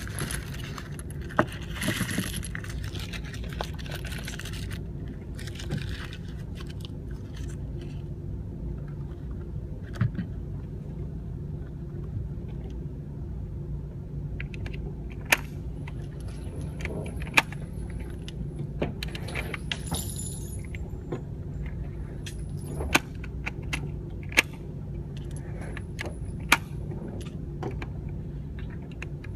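Steady low vehicle hum with light jingling rattles and about seven sharp clicks or knocks scattered throughout.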